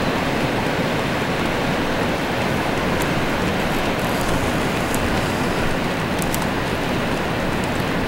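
Strong wind and breaking surf: a steady, even roar of noise.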